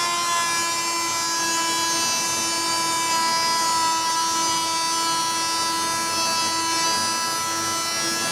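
Wolf Combo Tool Plus, a 260 W mains oscillating multi-tool, buzzing steadily at a constant high pitch as its blade cuts into a wooden post.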